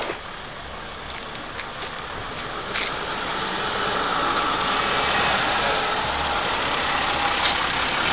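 Ambulance engine and tyres growing steadily louder as the vehicle drives up and passes close by.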